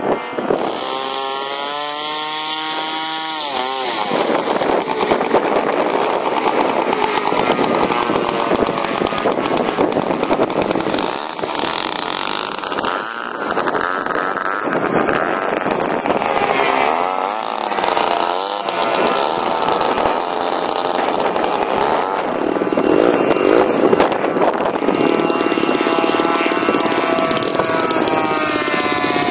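Engines of giant-scale radio-controlled warbird model planes running in flight, the note rising and falling in pitch as the planes pass and turn through their manoeuvres.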